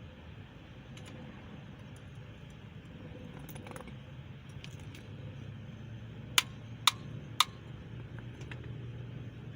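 Three sharp metal-on-metal hammer strikes about half a second apart, with a short ring after each, knocking at the rear cam freeze plug of a small-block Chevy 350 engine block so it can be driven out. Light tool clinks sound over a steady low hum.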